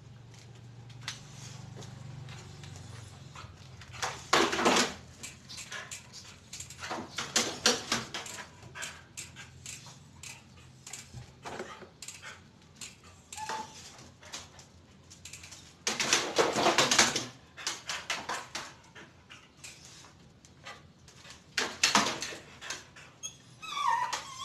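A dog moving about, with bursts of scuffling and clattering, and a short high whine near the end.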